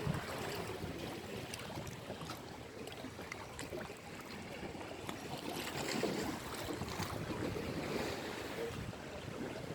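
Sea waves washing on the shore, swelling and falling, with wind buffeting the microphone.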